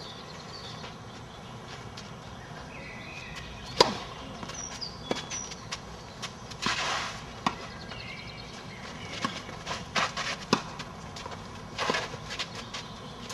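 Tennis balls struck by rackets in a doubles rally on a clay court: a series of sharp pops a second or more apart, the loudest about four seconds in.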